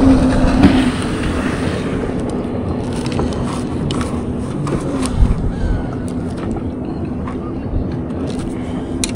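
Steady low drone of an engine under a rushing wind-like noise, with a few light clicks and knocks scattered through.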